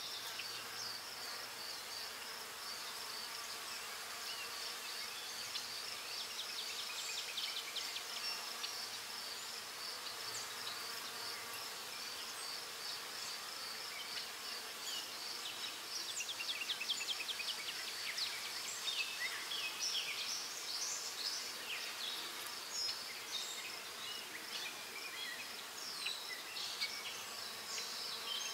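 Graphite pencil scratching across drawing paper in short, quick shading strokes, busier and louder in the second half. Behind it runs a steady, high-pitched, evenly pulsing chirring.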